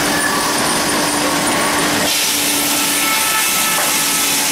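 Steam-powered circular sawmill running as the log carriage is worked: a steady mechanical noise under a constant hum, turning brighter and harsher about two seconds in.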